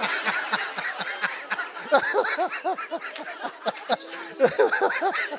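A congregation laughing: many voices chuckling and laughing at once, overlapping throughout.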